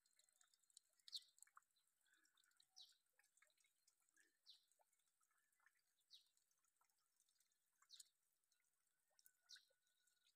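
Very faint short high-pitched call from a small bird, repeating evenly about every second and a half to two seconds over near silence.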